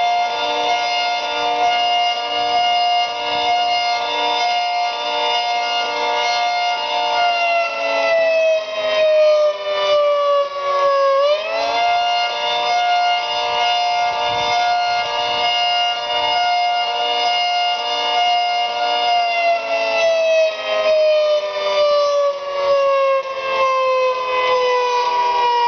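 Federal Signal 3T22 three-tone outdoor warning siren sounding a wail, a loud chord of several tones. The chord holds steady for about seven seconds and then sags in pitch. About eleven seconds in it quickly rises back, holds, and near the end slides down again.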